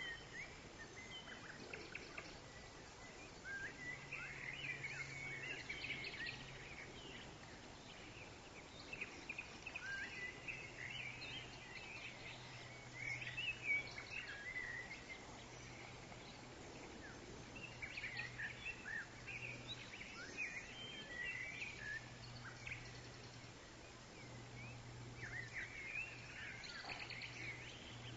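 Faint outdoor ambience of small birds chirping and trilling on and off, over a low steady hum.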